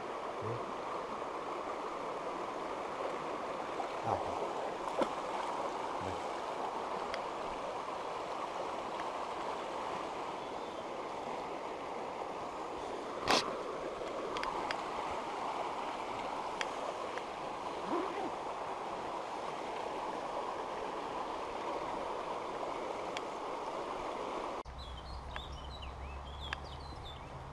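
Shallow stream running over stones, a steady rush of water, with one sharp knock about halfway through. Near the end the sound cuts abruptly to a quieter scene with a low hum and a few faint chirps.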